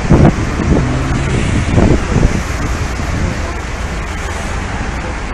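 City street traffic at a busy intersection: a steady rush of cars and engines, with a few short louder sounds in the first two seconds.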